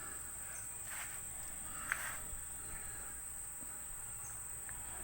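Crickets chirping together as one steady high-pitched drone, with a small click about two seconds in.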